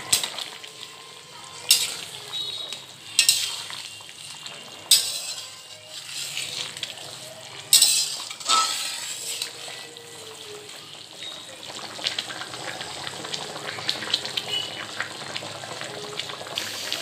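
Egg curry simmering and bubbling in a metal kadai, while a spatula stirs and clinks against the pan several times in the first half.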